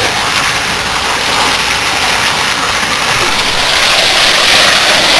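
Davey Power Chief 105 electric centrifugal pump running, its discharge hose shooting a strong jet of water into a tub of churning, foaming water: a steady loud rushing splash over the pump's running, a little louder in the second half.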